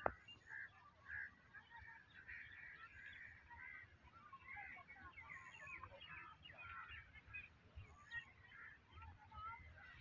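Faint, continuous chatter of many bird calls, short overlapping notes with no steady rhythm, over a low rumble.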